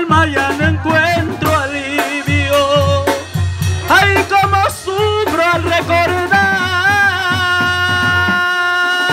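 Live Mexican brass band (sousaphone, trombones, trumpets and drums) playing an instrumental passage over a steady beat, then settling into a long held chord over the last few seconds as the song closes.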